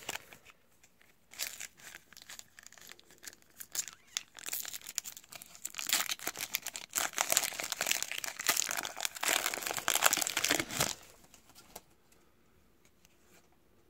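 A foil trading-card pack wrapper being torn open and crinkled in the hands, a dense crackling rustle that is loudest in the middle and dies away about eleven seconds in.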